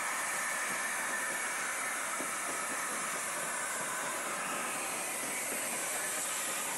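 Steam locomotive passing close while hauling its train, with a steady hiss of steam.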